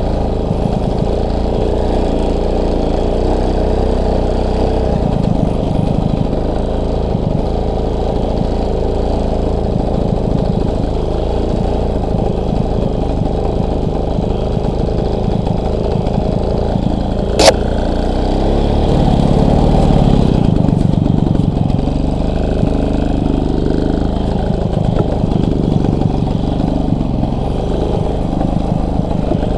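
Motorcycle engine running steadily under way. A sharp click comes about halfway through, and the engine gets louder for a few seconds after it.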